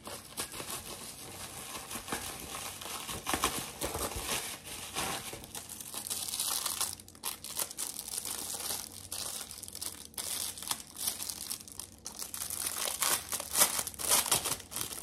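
Plastic packaging crinkling and rustling as it is opened and handled by hand, in irregular crackles throughout, loudest near the end.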